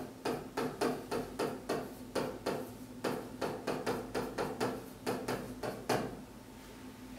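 A stylus tapping and scraping on a touchscreen display as a word is handwritten: a quick run of short knocks, about three a second, that stops about six seconds in, over a faint steady hum.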